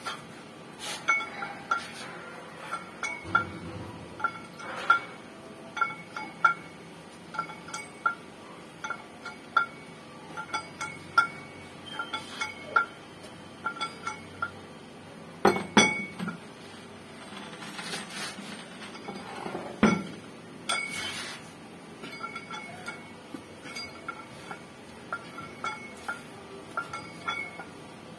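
Homemade dumbbells made of metal gear wheels clinking as they are curled, the plates knocking on each other and ringing briefly, about one or two clinks a second, with a louder clatter about halfway through.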